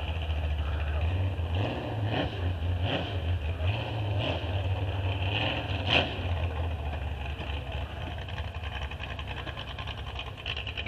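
Vehicle engines running with a steady low rumble. Over it comes a string of short sharp knocks about two-thirds of a second apart, the loudest about six seconds in.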